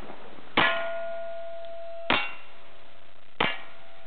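Three single-action revolver shots about a second and a half apart, each followed by the clang of a steel target ringing after a hit.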